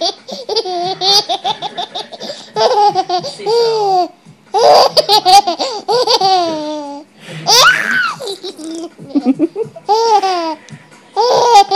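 A young child laughing hard in repeated fits of high-pitched giggles, with short pauses between them.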